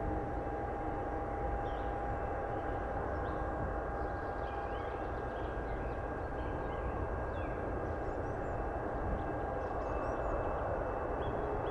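Boeing 777-200 jet engines running at low thrust as the airliner taxis onto the runway: a steady whine with a held tone over a broad rumble.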